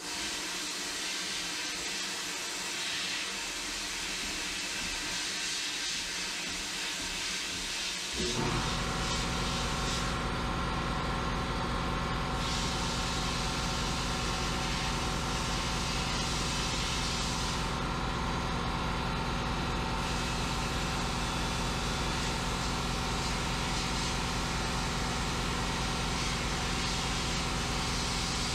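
Sandblaster blasting glass beads: a steady hiss of air and abrasive, which drops out briefly twice, about 10 and 18 seconds in, as the blasting pauses. About eight seconds in, a motor starts and runs on beneath it with a steady hum.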